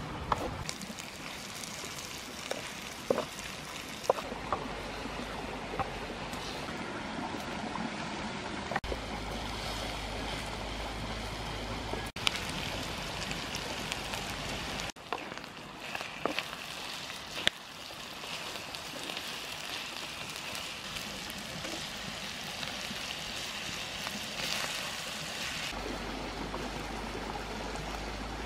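Snake meat simmering and sizzling in a wok of sauce over a wood fire: a steady watery hiss, with a few sharp knocks and scrapes of the stirring spoon against the pan.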